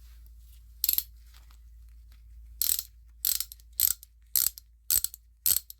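Hand ratchet with a socket fitted, worked back and forth: one burst of pawl clicks about a second in, then from about two and a half seconds in a steady run of click bursts about twice a second. The ratcheting is rough, the sign of a cheap, coarse ratchet mechanism.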